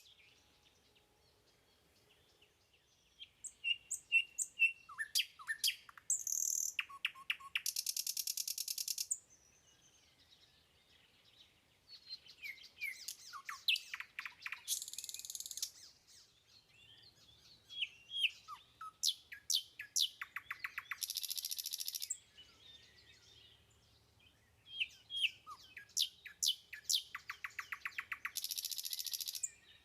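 A songbird singing the same song over and over, about every seven seconds. Each song is a run of sharp, high chirps and quick sweeps ending in a harsh, rattling buzz.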